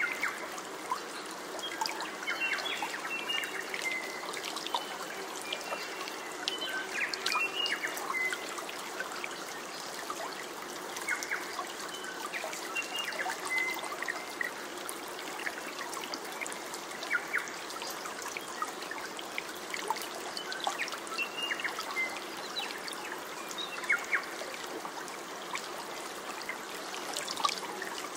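Water trickling and splashing steadily, like a small stream, with many little splashes and occasional bird chirps.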